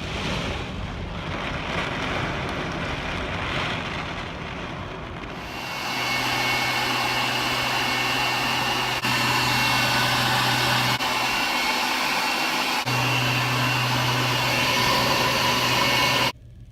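Heavy storm rain as a steady rushing hiss, in several short clips. From about six seconds in it turns louder and brighter, with a steady low hum beneath, and it cuts off suddenly near the end.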